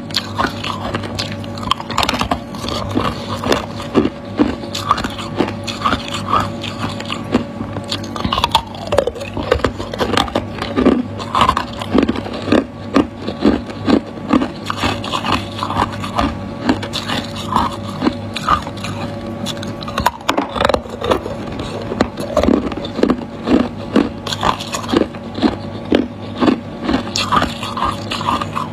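Hard ice cubes cracking and crunching over and over, about one or two sharp crunches a second, with some scraping.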